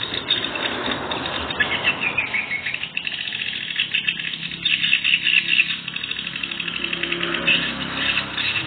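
Swiftlets twittering in a swiftlet house: dense, rapid chirps and trills, heard through a surveillance camera's microphone that cuts off the high end. A rushing noise runs under the calls for the first few seconds.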